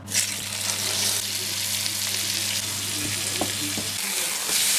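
Steak sizzling in a hot frying pan, a steady hiss that starts suddenly, with a few light clicks of a fork against the pan about three and a half seconds in.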